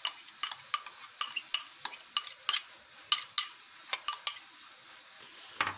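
Metal spoon clinking and scraping against glass bowls, a quick irregular run of bright ringing taps with a short pause near the end, as chopped coriander and mint are scraped out of a small glass bowl into a bowl of boiled potatoes.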